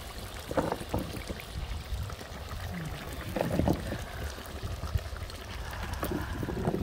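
Raw potato slices dropped by hand into simmering meat broth in a cast-iron kazan: a few bunches of splashes and plops, over a steady low rumble.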